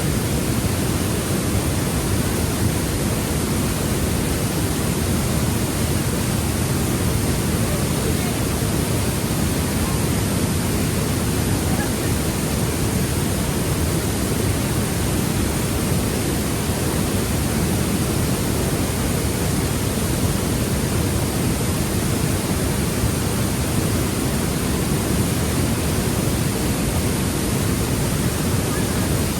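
Steady rushing water, a constant full noise heavy in the low end, with no pauses or separate strokes.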